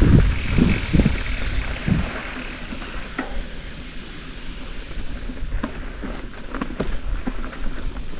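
Mountain bike riding on a dirt trail: wind buffets the microphone, heaviest in the first couple of seconds and then easing off. Under it run a steady tyre hiss and scattered clicks and rattles from the bike.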